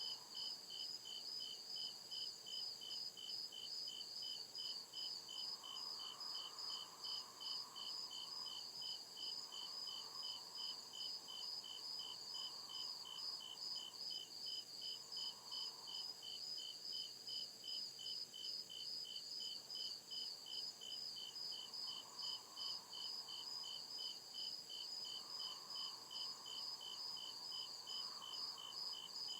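Crickets chirping in an even, unbroken rhythm, about two to three chirps a second, over a continuous high-pitched insect trill.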